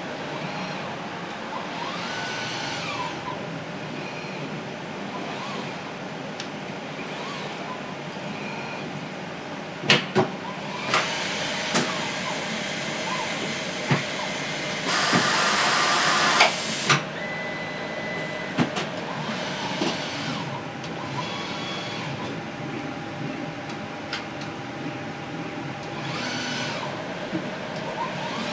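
KiNEDx laboratory robot arm's motors whining up and down in pitch as the arm moves, over a steady machine hum. In the middle come several sharp clicks and two bursts of loud hiss, the second lasting about two seconds. A short steady tone follows.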